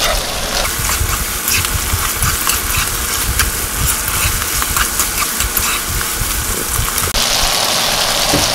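Shrimp and garlic scapes sizzling in a saucy nonstick wok as they are stir-fried with a spoon, with scattered light clicks of the spoon against the pan. A steady low rumble runs underneath.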